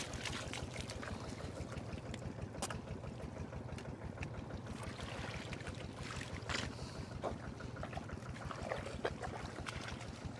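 Hands sloshing and squelching through shallow muddy water and mud, with scattered short splashes, and wading steps through the shallows near the end. A steady low rumble runs underneath.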